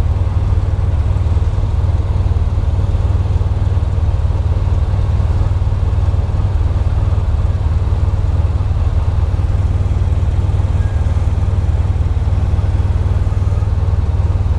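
Motorcycle engine idling steadily at a standstill, a constant low rumble.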